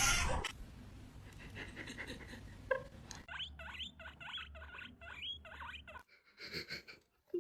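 Hamster squeaking: a quick run of about seven short rising squeaks in the middle, with faint rustling around them.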